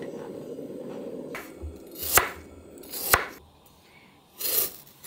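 Kitchen knife cutting through a raw potato onto a wooden cutting board: three sharp strikes about a second apart. Before them, a low rushing noise for about the first second and a half.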